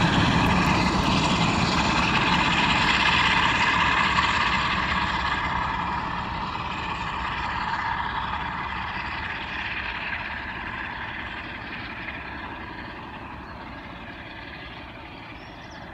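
Class 47 diesel locomotive's Sulzer twin-bank 12-cylinder engine working as the train pulls away, with a steady high whine over the engine note, fading steadily into the distance.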